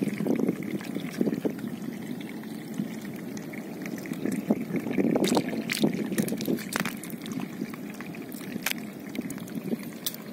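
Shallow water sloshing and trickling as a hand sweeps and scoops through it, with a few sharper splashes in the second half.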